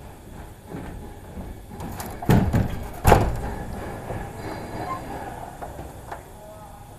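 A burst of rattling knocks about two seconds in, then one loud bang about a second later that dies away slowly, over faint steady background noise.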